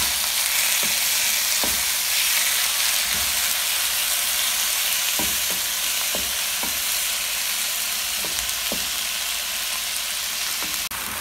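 Marinated chicken cubes and chopped garlic sizzling in hot oil in a nonstick pan, a steady frying hiss, with a wooden spatula stirring and tapping against the pan now and then.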